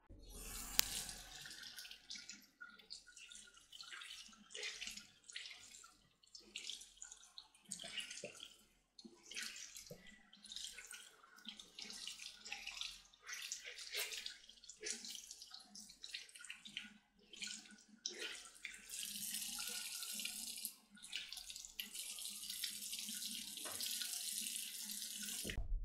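Tap water splashing into a bathroom sink in irregular bursts as a makeup sponge is rinsed and squeezed out. Near the end the tap runs in a steady stream for several seconds.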